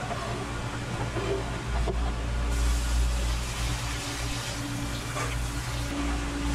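Water from a spray-head tap running onto spoon worms in a metal colander as they are rinsed, starting about two and a half seconds in as a steady hiss. A steady low hum runs underneath.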